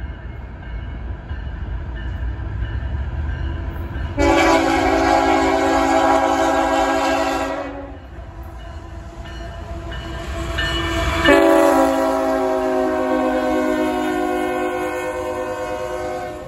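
CSX freight locomotive sounding its multi-note horn in two long blasts over the rumble of the approaching train. The second blast drops in pitch as the locomotive passes, and the rumble fades near the end as the freight cars roll by.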